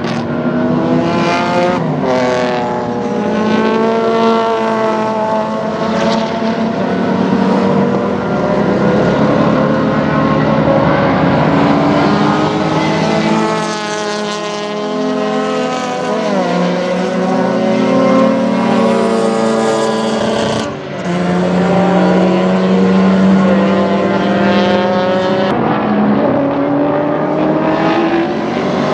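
Historic racing cars' engines at full race revs as they pass and accelerate out of corners, the engine notes climbing and then dropping again. The sound changes abruptly a few times.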